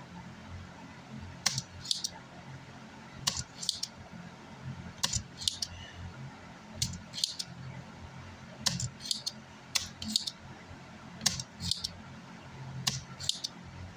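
Spring-loaded desoldering pump (solder sucker) clicking in pairs, cocked and then snapped, about every two seconds, seven or eight times, as solder is sucked off the pins of burnt power-supply MOSFETs. A low steady hum runs underneath.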